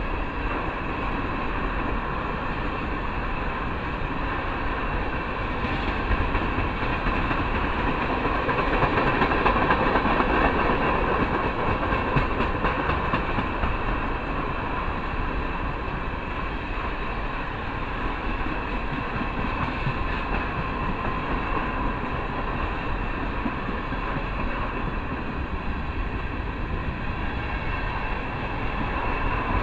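Black tank cars of an ethanol freight train rolling steadily past, their steel wheels running on the rails. The noise swells a little about ten seconds in.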